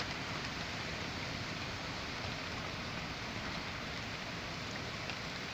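Steady rain falling during a severe storm, an even hiss of rain on surfaces.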